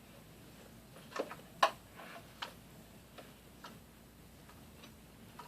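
About ten light, irregular clicks and taps, starting about a second in; the loudest comes early in the series.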